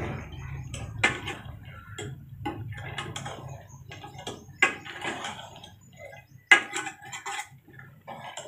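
Steel ladle knocking and scraping against a metal pot as chunks of goat meat are stirred and fried in ghee, in irregular clinks, over a low steady hum.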